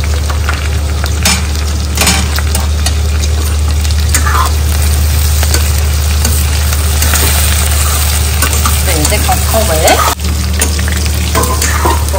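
Okra and green chillies sizzling as they fry in an aluminium kadai, stirred and scraped with a metal spatula, with a few sharp knocks of the spatula against the pan.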